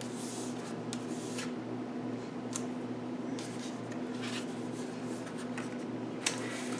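Cardstock envelope rustling and rubbing lightly as it is lifted and handled, with one sharper tap near the end, over a steady low hum.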